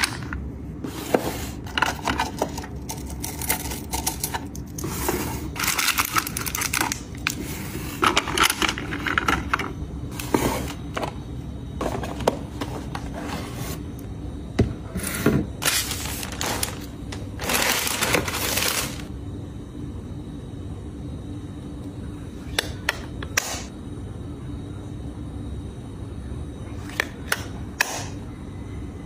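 Plastic-wrapped supplies rustling and clicking as they are handled and packed into clear acrylic drawers. The handling is busy for most of the first twenty seconds, then quieter, with a few sharp clicks near the end as a clear plastic press-on nail case is handled. A steady low hum runs underneath.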